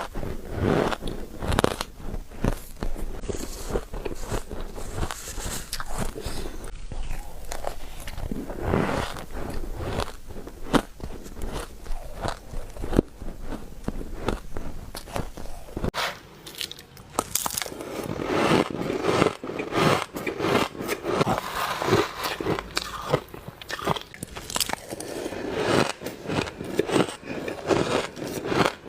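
Ice being bitten and crunched between the teeth and chewed, close to the microphone: a long run of sharp, irregular crunches. The sound changes about sixteen seconds in, as if to a new mouthful or clip.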